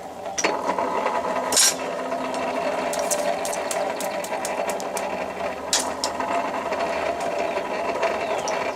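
Electric blower of a coal forge running steadily with a constant hum, as a piece of steel heats toward critical temperature for hardening. A few short sharp clicks sound over it.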